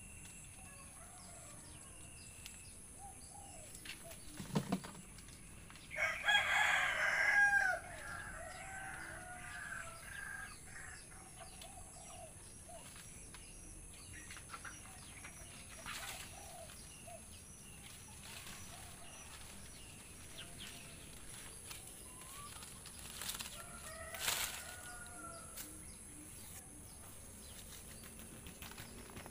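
A rooster crows once, about six seconds in, for roughly two seconds, with chickens calling in shorter bursts afterwards and again later. Small birds chirp faintly, and there is a short knock just before the crow.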